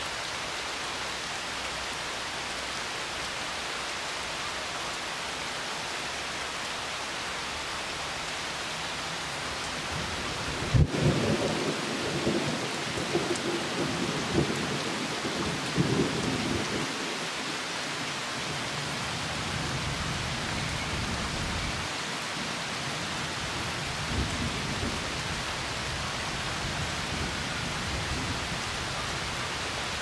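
Steady rain falling on a river and the leaves around it, with a sharp thunderclap about a third of the way in that rumbles on for several seconds, and a fainter rumble of thunder later.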